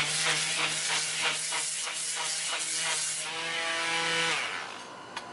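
Corded electric palm sander running against a wooden axe handle, its sanding strokes coming about three a second over the motor's steady hum. A bit past three seconds in it comes off the wood and the motor winds down, falling in pitch for about a second before it stops.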